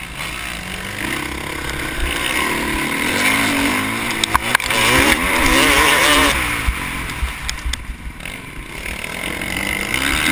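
Motocross dirt bike engine heard from a helmet camera, revving up and down with the throttle over steady wind rush on the microphone, with a few sharp knocks about four and a half seconds in.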